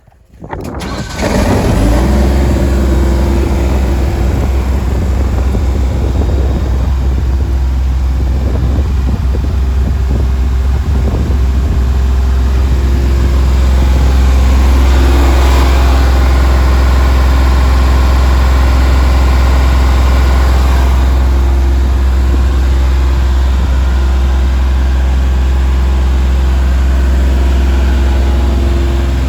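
Atlas Copco XAS 97 portable screw compressor's Deutz diesel engine starting, catching about a second in, then running steadily and loudly. For several seconds in the middle a brighter hissing sound joins the engine note.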